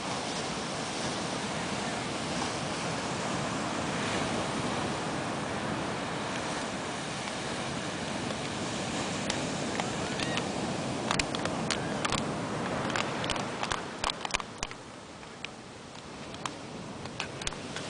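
Ocean surf breaking and washing up on a sand beach, a steady rush of waves. From about halfway, scattered sharp ticks of light raindrops striking close to the microphone join in.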